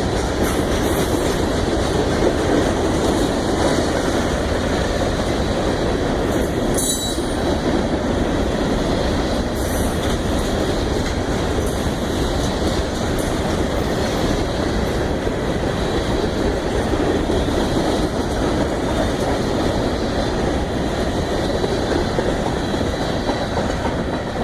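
Freight cars of a grain train rolling past at close range: a steady rumble of wheels on rail, with a couple of sharp clicks about seven and ten seconds in.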